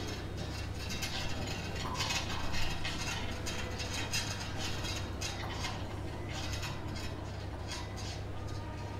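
Hospital ambience: a steady low hum with a run of light metallic clicking and rattling that thins out after about six seconds.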